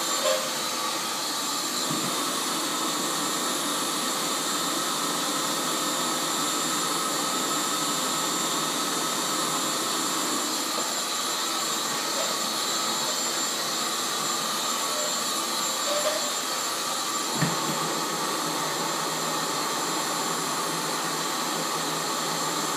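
Vacuum cleaner with hose and floor wand running steadily, a constant whine over the rush of air. One short knock about three-quarters of the way through.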